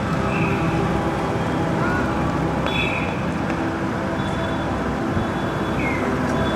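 City street traffic: steady engine hum and road noise, with a few short high tones over it.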